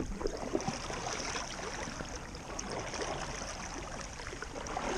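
River water lapping and trickling against an inflatable paddleboard, with small splashes from a hand trailing through the water.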